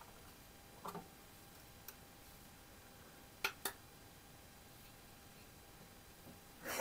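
Faint room tone broken by a few small plastic clicks, two sharp ones about three and a half seconds in, as the hinged clear plastic lid of a pocket digital scale is handled and flipped open. A louder knock comes right at the end.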